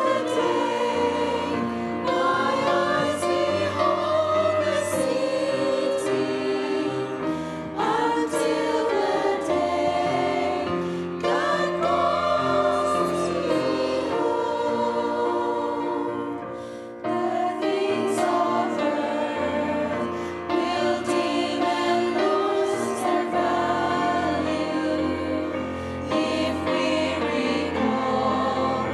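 A women's vocal group singing a hymn in unison and harmony with piano accompaniment, in sustained phrases with a short break about seventeen seconds in.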